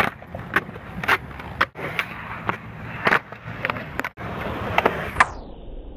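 Skateboard wheels rolling on concrete with a steady rumble, broken by a series of sharp clacks and knocks from the boards. The sound turns muffled near the end.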